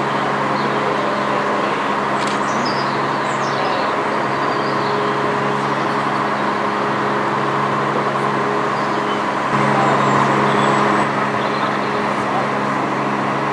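Steady drone of an idling engine, its low hum holding level throughout, with no steam-exhaust chuffing; it grows a little louder for about a second and a half about ten seconds in. A few faint high chirps sound around two to four seconds in.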